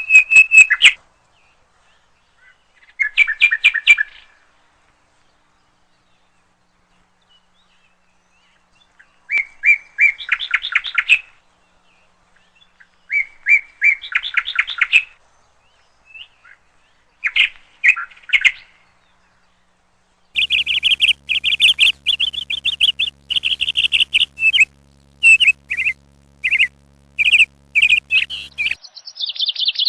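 A songbird singing: short phrases of rapid, trilled chirps with pauses between them, turning into near-continuous chirping about two-thirds of the way through.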